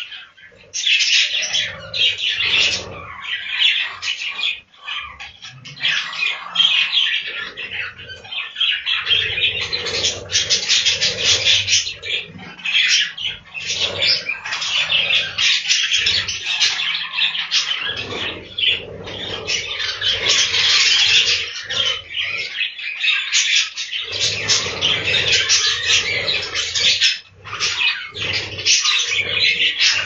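A flock of budgerigars chattering and chirping continuously in a dense, fast warble, with wing flutters as birds fly between perches and the seed dish.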